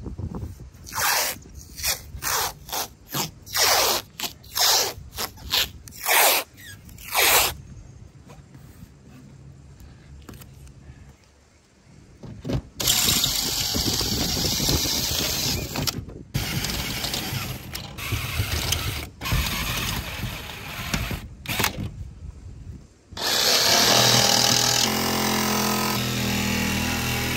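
Painter's tape torn off the roll in a quick series of short rips. Then, about halfway through, a DeWalt cordless drill runs in several stretches with short stops, drilling through the Sprinter van's sheet-steel roof. In the last few seconds a DeWalt cordless jigsaw starts cutting the roof metal, louder and steady.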